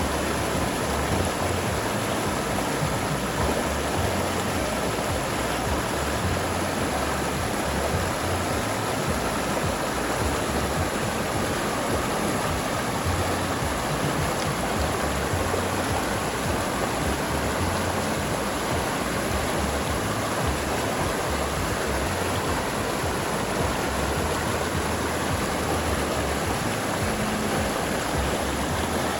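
River water flowing, a steady even rushing that does not change.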